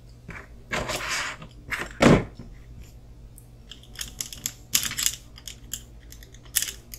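Small plastic and metal kit parts and hardware being handled on a workbench: scattered light clicks and taps, a short rustle a little under a second in, and one louder knock about two seconds in.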